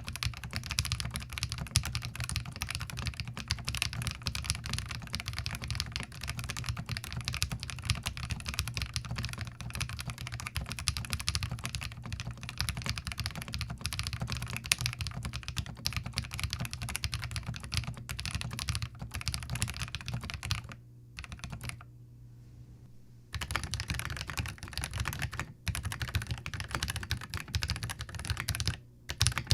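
Rapid, continuous typing on a Zoom TKL mechanical keyboard fitted with Glorious Lynx linear switches. The typing stops for about two seconds about two-thirds of the way through, then resumes, with a couple of brief breaks near the end.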